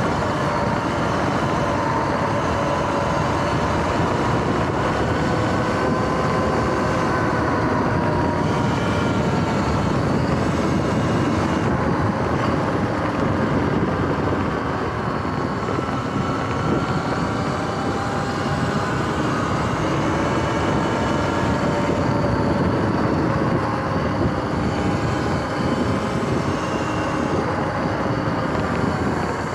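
Sur-Ron X electric dirt bike riding along: the motor and belt drive whine, the pitch slowly rising and falling with speed, over a steady rush of wind and tyre noise.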